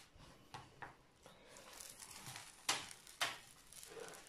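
Faint rustling and crinkling of a diamond-painting canvas and its plastic cover film being smoothed and handled by hand, with two louder crackles about half a second apart past the middle.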